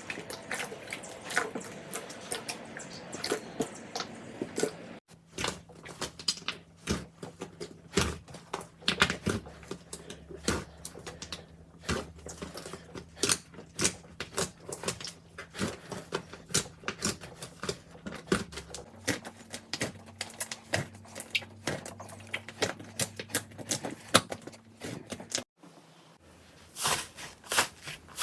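Slime being squeezed and poked by hand, making many irregular sharp pops and clicks. There are abrupt changes twice, where one slime clip gives way to the next.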